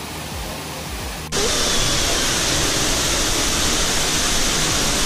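Waterfall splashing down onto rocks: a steady rushing hiss that suddenly becomes louder and fuller just over a second in.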